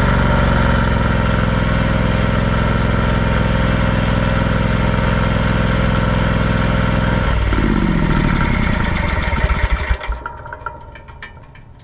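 John Deere X500 lawn tractor's engine running steadily while parked, then switched off about seven and a half seconds in. It winds down with falling pitch and slowing beats and stops about two seconds later.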